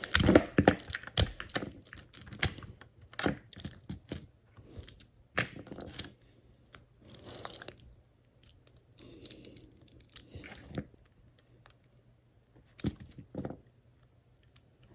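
Small plastic pieces of a Rubik's Speed 2x2 speed cube clicking and knocking as the cube is pulled apart by hand and the pieces are set down. The clicks come thick in the first half, then sparse.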